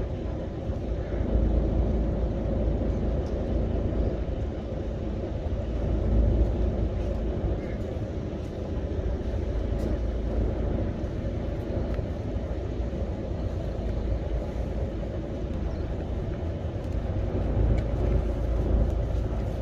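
Fishing boat's engine idling, a steady low rumble heard from on board.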